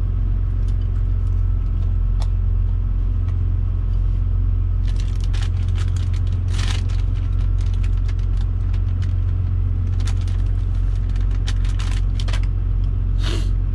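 Steady low rumble of a parked truck's idling engine heard inside the cab, with clicks and scrapes of eating utensils on dishes starting about five seconds in.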